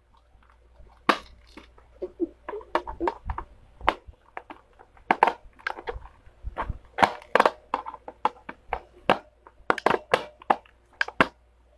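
Plastic casing of a toy Iron Man hand being pried open with a tool: many sharp cracks, snaps and knocks at irregular intervals, coming thicker in the second half.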